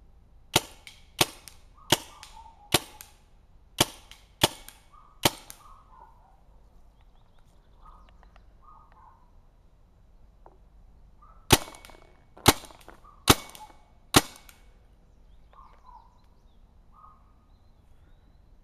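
Tippmann U.S. Army Alpha Black paintball marker firing single shots on CO2: seven sharp pops in about five seconds, a pause of about six seconds, then four more.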